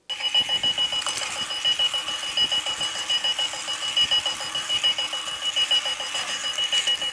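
Two-wheeled runaway alarm clock going off with its electronic alarm: a steady high tone over a fast, even pulsing of about seven beats a second, starting abruptly.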